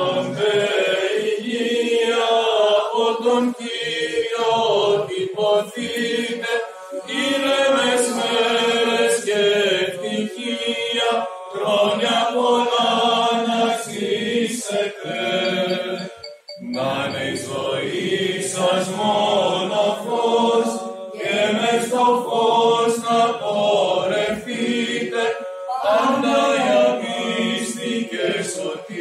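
Mixed Orthodox church choir of men and women singing a cappella chant in sustained, held notes, with a short break for breath about halfway through.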